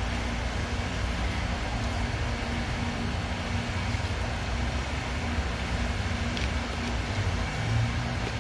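Steady outdoor background noise: a constant low rumble with a hiss over it and a faint steady hum, with no distinct events.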